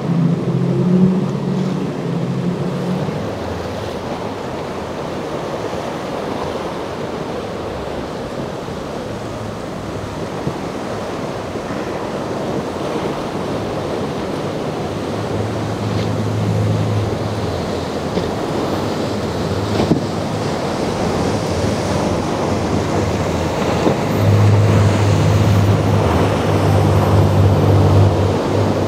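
Boat engines droning through rough inlet water: a low engine hum that shifts in pitch now and then and gets louder in the last few seconds, over a steady wash of waves and wind on the microphone.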